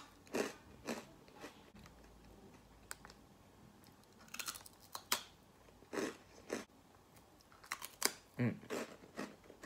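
Bin Bin coconut-milk-flavoured rice crackers being bitten and chewed: a series of short crunches, spaced irregularly, with quieter chewing between them.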